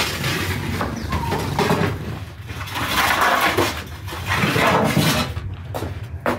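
Metal baking pans scraped and slid across the floor of a wood-fired brick oven, in several rough swells about a second long, with a sharp click near the end.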